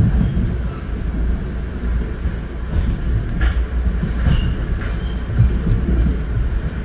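Metro-North commuter train running along the tracks, heard from inside a passenger car: a steady low rumble with a few light, irregular clicks.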